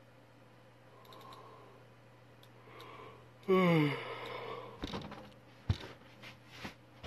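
A man lets out one loud sigh that falls in pitch about halfway through, followed by a few sharp taps and knocks, over a steady low hum.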